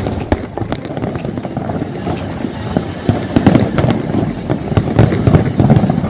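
Fireworks display: a dense, continuous run of bangs and crackling, many bursts overlapping.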